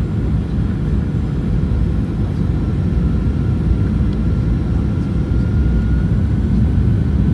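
Steady low rumble inside an airliner cabin on descent: engines and air rushing past the fuselage. A faint high whine sits above it.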